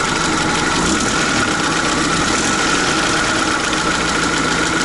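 UAZ-469's four-cylinder petrol engine running steadily with a knock coming through, after losing all oil pressure: the owner suspects a spun crankshaft bearing shell.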